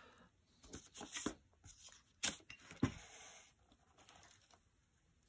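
Faint pencil strokes scratching on drafting paper, with a few light knocks and slides as a wooden triangle and straightedge are moved on the drawing board.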